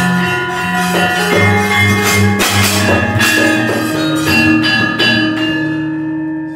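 Javanese gamelan accompaniment for a wayang kulit shadow-puppet performance: many ringing metallophone and gong tones, with a few sharp strikes about two seconds in. The music dies away near the end.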